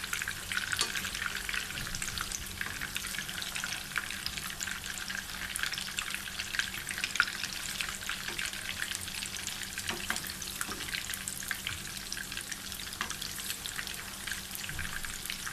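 Minced-beef kebabs shallow-frying in oil over low heat: a steady crackling sizzle, with a metal spoon turning them in the pan.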